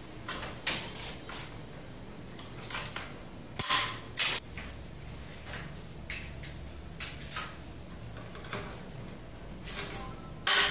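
Hand pop-rivet gun squeezed as rivets go into a sliding door panel's astragal: a run of scattered clicks and sharp snaps as the rivet stems break off, the loudest two about four seconds in and another at the end.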